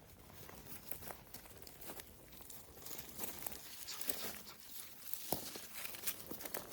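Scattered light rustling and crackling with a few sharper ticks, growing busier and louder toward the end.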